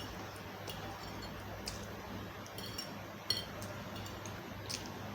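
Close-miked eating sounds: scattered soft clicks and smacks of chewing and handling food, with the odd small clink, over a steady low hum.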